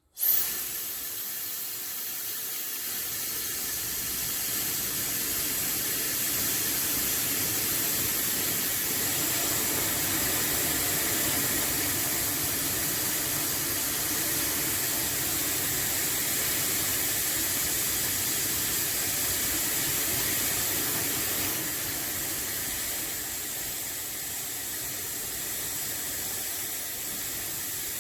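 High-speed hair dryer switched on and blowing: a steady rush of air with a strong high hiss. It gets a little louder after a few seconds and eases slightly about twenty seconds in.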